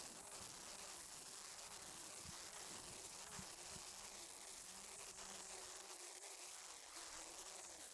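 Faint buzzing of a flying insect, its pitch wavering, over a quiet outdoor background hiss.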